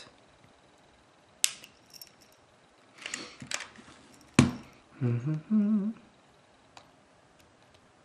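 Sharp plastic clicks and taps as a small flathead screwdriver pries at a pressure clip in the Samsung Q1 Ultra Premium's plastic case, the loudest snap coming about four and a half seconds in. A brief low hum follows about a second later.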